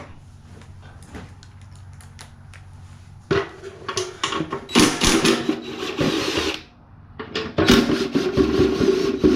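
Handheld power drill/driver running in two bursts to spin out bolts during a teardown, each run a steady whir with short stutters. The first run starts about three seconds in and lasts about three seconds. The second starts about a second later and runs on.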